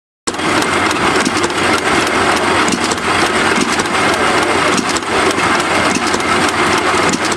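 Antique hit-and-miss gas engine running while it drives a water pump, with water pouring from the spout into a barrel.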